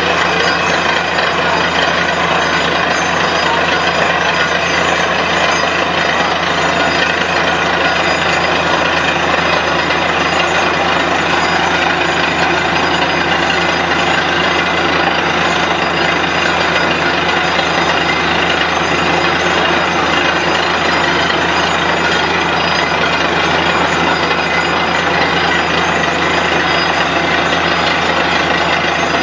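Borewell drilling rig running steadily while drilling: a loud, constant mechanical din with a steady low drone underneath.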